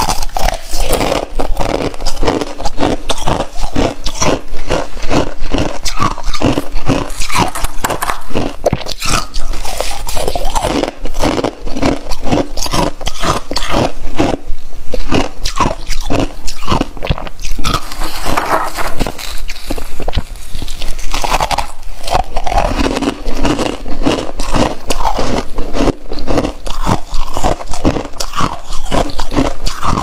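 Thick, fluffy freezer frost crunching as a hand grabs and squeezes it, a quick unbroken run of crunches.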